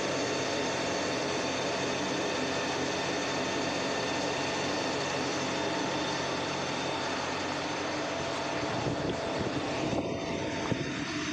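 Steady drone of copper-wire factory machinery running, several constant humming tones over a whirring noise. A short click near the end.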